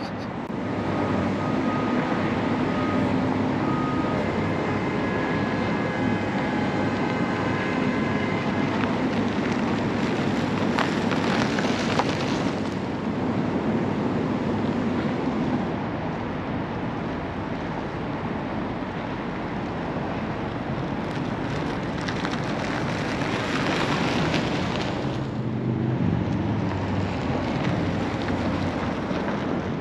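1994 Subaru Legacy Touring Wagon, with its turbocharged EJ22T flat-four, driving around the parking lot, engine and tyre noise mixed with wind buffeting the microphone. The noise swells and brightens twice, about a third of the way in and again about three quarters through.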